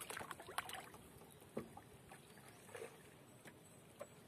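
Near silence, with a few faint, scattered small water splashes and drips against the boat.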